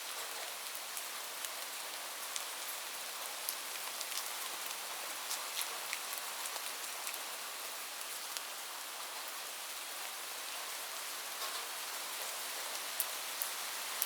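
Steady rain falling: an even hiss, with many single drops ticking sharply at scattered moments.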